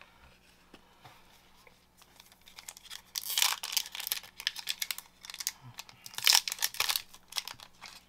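A 2021 Topps MLS trading-card pack wrapper being crinkled and torn open, in crackling bursts that start about three seconds in and peak around the middle and again near the end.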